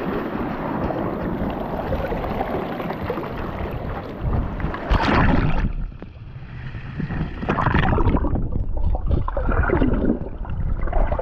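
Sea water splashing and washing at the water's edge, with a loud splash about five seconds in. After it the sound turns muffled and dull as the microphone goes under the water, with irregular gurgling and sloshing.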